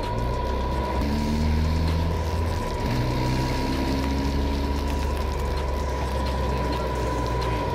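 Rebuilt Honda Civic's engine running steadily, its pitch shifting slightly a few times, with a constant high whine over it.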